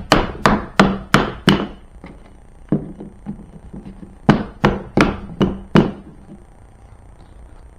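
Sharp knocks on the BMW pannier's plastic hinge as it is tapped along its rail to drive it off, loosened with WD-40: a run of about six quick strikes, a pause with a couple of lighter ones, then another run of about six.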